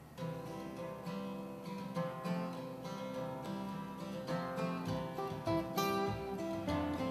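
Acoustic guitar picking an instrumental intro, with upright bass joining in low notes about five seconds in.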